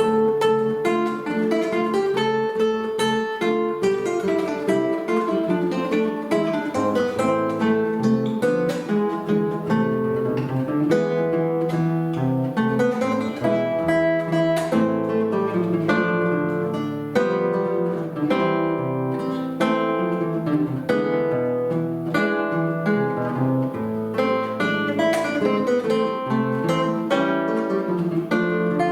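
Two acoustic guitars playing a duet: plucked melody notes over a bass line and chord accompaniment, at an even, moderate loudness.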